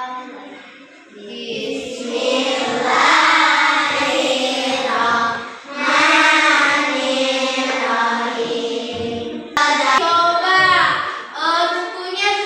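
A group of children singing a song together, with an abrupt break about nine and a half seconds in where the sound jumps and the singing carries on.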